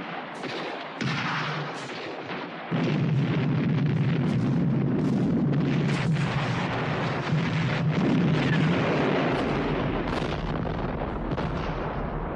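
Battle sound effects: repeated rifle shots crack throughout. About three seconds in, a big explosion goes off and its rumble carries on for several seconds, as a vehicle on the cliff road blows up and burns.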